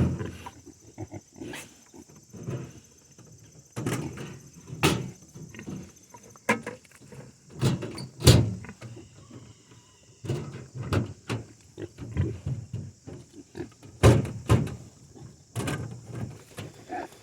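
Pigs grunting in short, irregular bursts while they feed, with a few sharp knocks among them.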